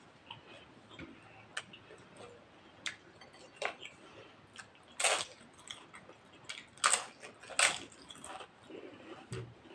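Close-miked eating sounds: chewing with small wet clicks and smacks, and three louder crunchy bites about five, seven and seven and a half seconds in.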